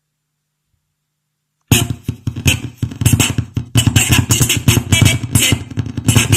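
Music with a heavy beat playing back on a Xiaomi Redmi Note 3 Pro cuts out completely, leaving only a faint hum, then comes back abruptly about a second and a half in. The dropout is the phone's sound problem.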